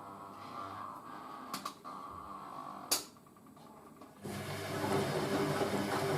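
Hoover A3060 washing machine between its wash and first intermediate spin: a quiet hum with two sharp clicks of the programmer or relays, then about four seconds in the drain pump starts with a steady, louder grinding hum as the machine pumps out before spinning.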